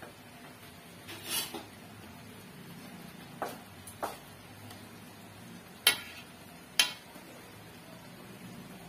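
A metal utensil clinking against an aluminium wok: a short scrape about a second in, then four sharp clinks, two light ones and, a few seconds later, two loud ones about a second apart.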